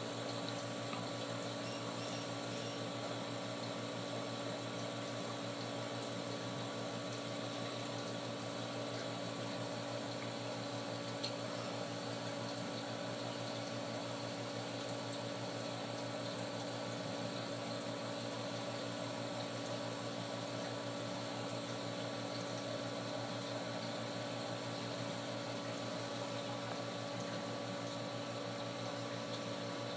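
Steady hum of a reef aquarium's pump, with water circulating; several fixed tones over an even hiss, unchanging throughout.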